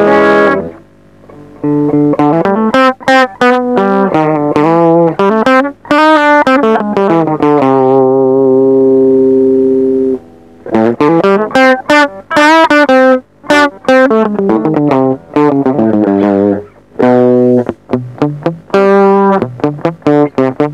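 Electric guitar played through a TC Electronic HyperGravity mini compressor pedal, switched on: phrases of picked notes with a chord held for about two seconds near the middle. The compression makes the note attacks come through clearer and more even.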